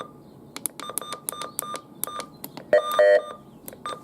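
A quick run of short, high electronic beeps, about a dozen, followed by a louder, lower, buzzing beep lasting about half a second roughly three seconds in, then two more short beeps.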